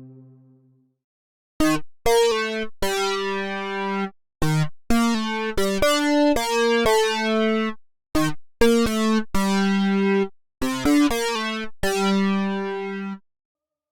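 Arturia OB-Xa V software synthesizer, an Oberheim OB-Xa emulation, playing a melodic phrase of short plucked notes. Each note starts bright and quickly mellows, and the phrases are split by brief pauses. A held chord fades out in the first second.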